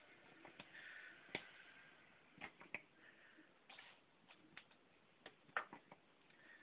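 Faint scattered taps and clicks of cats' paws and claws striking a toy spider and the tile floor, about a dozen, the sharpest a little over a second in and again near five and a half seconds.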